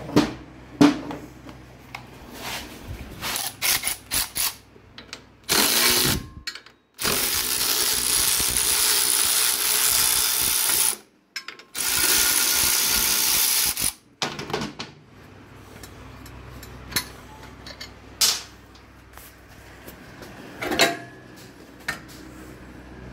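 Clicks and clinks of tools on metal, then a power tool running in a short burst and two longer runs of about four and two and a half seconds, each stopping abruptly, as a motorcycle's brake rod is taken off; a few more clinks follow near the end.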